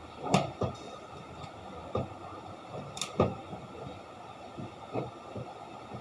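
Irregular knocks and clicks, with sharper ones about a third of a second in and about three seconds in.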